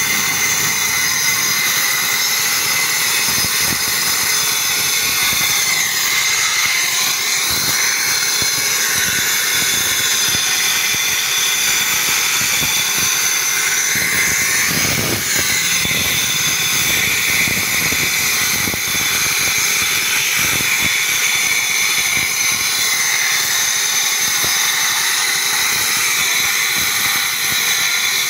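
Two handheld electric angle grinders running together, their discs cutting grooves into a concrete road surface: a steady high-pitched whine with grinding, dipping briefly in pitch as the discs bite.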